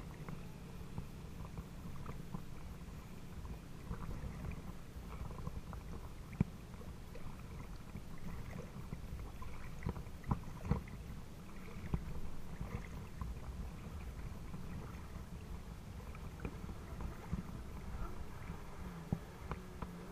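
Water lapping and splashing right by the microphone at the water's surface, over a steady low rumble, with scattered small knocks and splashes, a few louder ones partway through.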